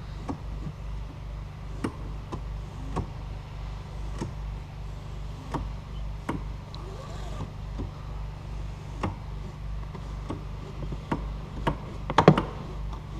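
Light clicks and knocks, roughly one or two a second with a quick cluster near the end, from the newly fitted front seat belt being handled and worked, its webbing pulled out and let back into a retractor that is still stiff.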